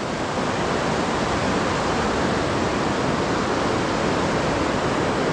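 Fast-flowing river whitewater rushing steadily.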